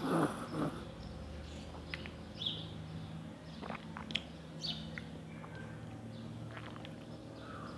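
A loud slurp of coffee sipped from a porcelain cup, lasting under a second at the start, then birds chirping briefly a few times in the background.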